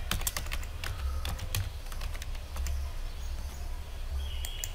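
Typing on a computer keyboard: a quick run of keystrokes in the first second and a half, then scattered clicks, with a few more near the end, over a steady low hum.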